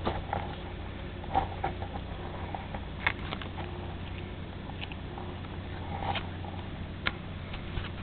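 A cat paws at and bites a camera strap right against the camera, making irregular taps, clicks and rustling handling bumps over a steady low hum.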